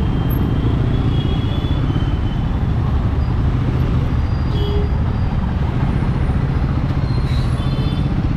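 Royal Enfield Guerrilla 450's single-cylinder engine running steadily while riding, with steady road noise.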